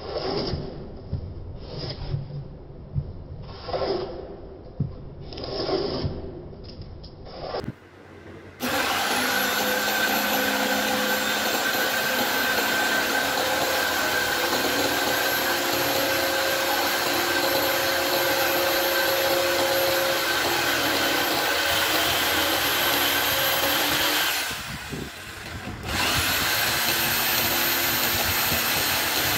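Hand plane shaving the willow of a cricket bat, a stroke about every second. From about eight seconds in, an electric jigsaw cuts through a wooden board with a steady motor whine; it stops briefly near the end, then starts cutting again.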